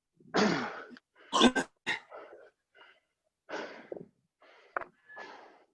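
Heavy, ragged breathing with gasping inhales and exhales from people winded by a round of burpees, recovering in the rest between rounds.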